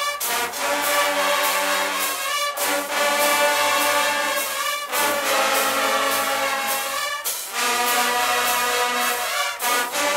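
Guggenmusik carnival brass band playing loud sustained brass chords (trumpets and trombones) over drums, the phrases breaking with a drum hit and restarting about every two and a half seconds.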